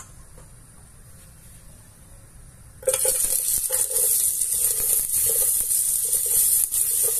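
Chopped onion hitting hot olive oil in an aluminium pressure cooker: the pan is quiet at first, then the oil starts sizzling loudly and suddenly about three seconds in and keeps frying with a steady crackle.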